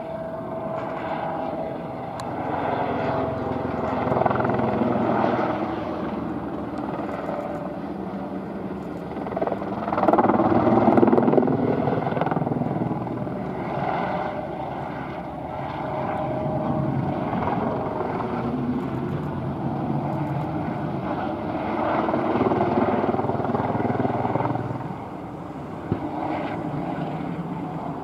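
Airbus EC120B helicopter flying aerobatics: its single turboshaft engine and rotor run continuously, the sound swelling and fading and shifting in pitch as it turns and passes, loudest about ten seconds in.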